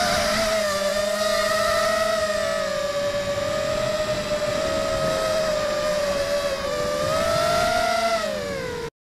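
Electric motors and propellers of a 250 mm FPV racing quadcopter, heard from its onboard camera: a loud, steady buzzing whine that wavers in pitch with the throttle. The pitch dips near the end, and then the sound cuts off abruptly.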